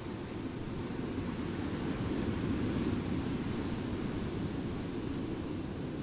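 Calm sea waves washing onto a beach as a steady low wash, swelling slightly about halfway through.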